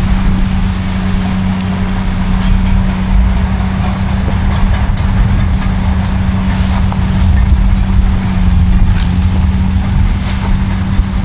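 Caterpillar bulldozer diesel engines running steadily, a constant low drone with scattered clicks and knocks.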